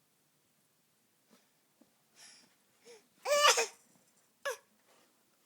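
A baby's short vocal sounds put on for attention: a breathy cough-like noise about two seconds in, then a loud, high cry-like squeal, and a brief high note near the end.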